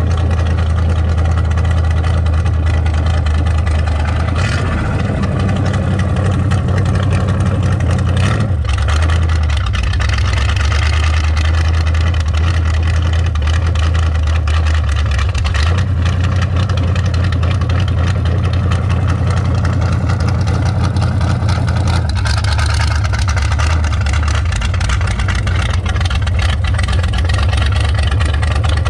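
A 1933 roadster hot rod's engine running through open headers while driving slowly, heard from the open cockpit. The low rumble shifts in pitch several times, about 4, 8, 16 and 22 seconds in, as the throttle changes.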